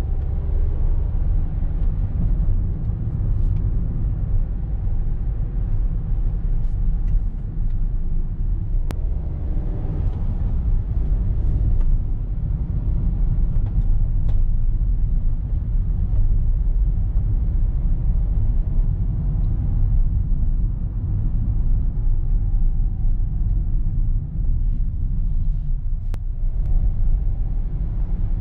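Renault Express van driving, heard from inside the cabin: its 1.3-litre turbocharged four-cylinder petrol engine and road noise make a steady low rumble, with a faint engine tone that rises and falls slightly.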